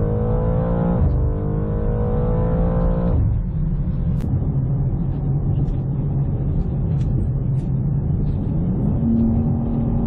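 BMW M2's twin-turbo straight-six at full throttle, pitch rising, dropping at an upshift about a second in, then rising again. About three seconds in it falls back to a lower, steady running sound with road noise.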